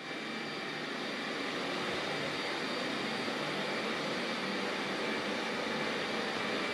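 A machine running steadily, a rushing hiss with a faint hum, that starts abruptly and then holds level.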